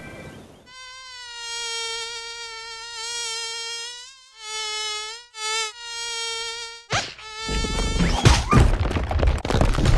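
An insect buzzing like a fly, held steady for several seconds with two short breaks. It is followed by a louder, noisy stretch of knocks and clatter.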